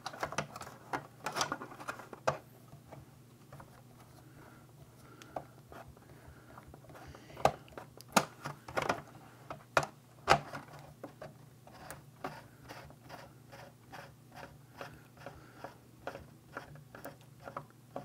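A screwdriver backing small screws out of a circuit board inside a plastic housing: scattered clicks and taps of the metal tip on screw heads and plastic, with a quicker run of small ticks in the last few seconds. A faint steady low hum lies underneath.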